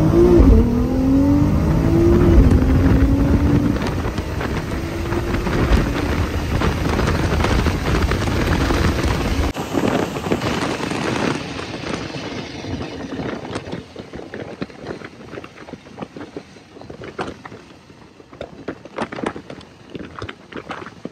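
Nissan GT-R's twin-turbo V6 under hard acceleration, heard from inside the cabin, with revs climbing and dropping at a gear change just after the start. About ten seconds in the engine note falls away, leaving quieter wind and road noise with scattered clicks.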